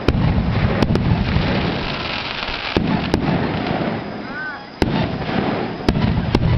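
Fireworks bursting overhead: about eight sharp bangs at uneven intervals over a continuous low rumble of further bursts and their echoes.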